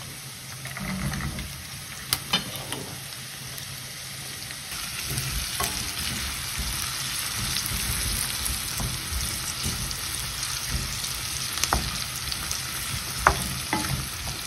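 Diced carrots, celery and onions sizzling in olive oil in a stainless steel frying pan, stirred with a wooden spoon that knocks against the pan a few times. The sizzle grows louder about five seconds in.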